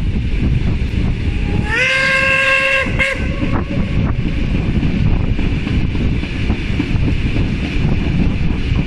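Steam locomotive whistle blowing once for about a second, its pitch rising as it opens and then holding steady, over the steady running noise of the train's carriages on the rails.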